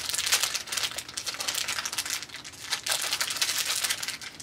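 Packaging crinkling and rustling in quick, irregular crackles as it is handled.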